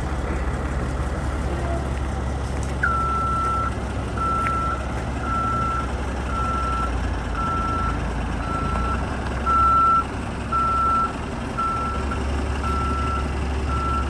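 Truck backup alarm beeping about once a second, starting about three seconds in, over the steady low rumble of the diesel engine running.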